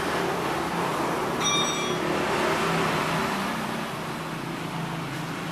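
A motor vehicle engine running in the background, swelling slightly and then easing off, with a brief high tone about one and a half seconds in.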